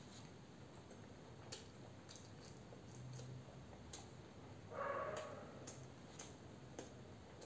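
Faint chewing and mouth noises of someone eating hard-boiled egg: scattered soft clicks and smacks, with a brief louder mouth sound about five seconds in.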